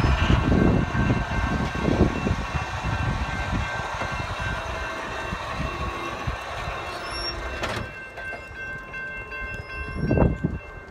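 Railroad grade-crossing warning bell ringing with steady tones, over a low rumble that fades gradually.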